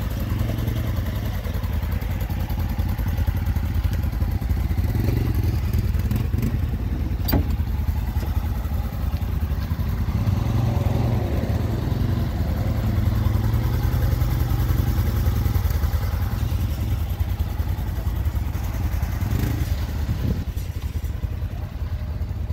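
Polaris Ranger 1000's twin-cylinder engine idling steadily, with a single sharp click about seven seconds in.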